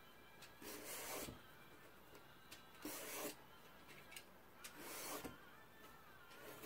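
Vegetable peeler scraping strips of skin off an eggplant: three rasping strokes about two seconds apart, with small ticks between them. The eggplant is being peeled in stripes, with some of the skin left on.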